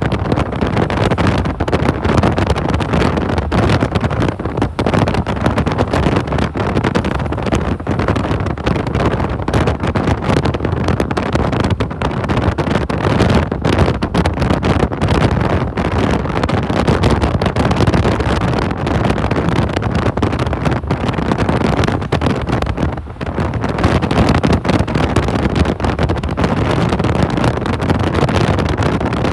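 Loud, steady rushing noise, like wind on the microphone while moving, with a brief dip about 23 seconds in.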